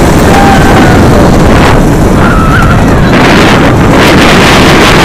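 Heavy wind rushing over the microphone of a front-row rider on a Bolliger & Mabillard inverted coaster train at speed, with the train's steady rumble on the steel track underneath.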